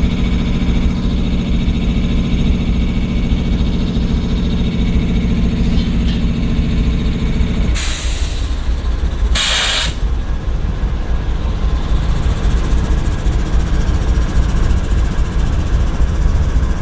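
GE ES40DC diesel locomotive's V12 engine idling with a steady low rumble. About eight seconds in, a higher hum above the rumble stops, and two short sharp hisses of released air follow about a second and a half apart.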